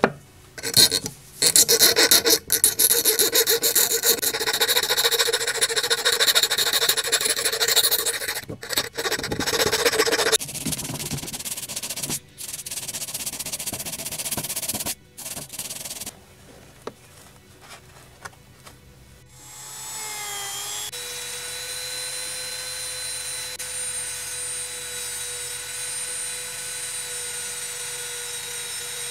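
A small metal part clamped in a bench vise is hand-filed with rapid scraping strokes, which stop about ten seconds in and are followed by a few shorter rubbing passes. About twenty seconds in, a small rotary tool with a felt polishing wheel spins up with a briefly rising whine and then runs steadily.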